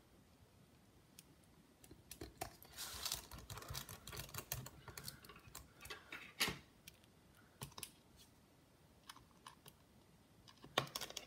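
Faint scattered clicks and light ticks of a precision screwdriver driving small screws into a laptop battery, with one sharper click about six and a half seconds in.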